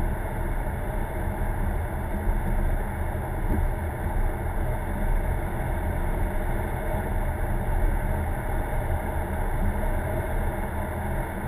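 A car driving at a steady speed, heard from inside the cabin: steady engine and road noise.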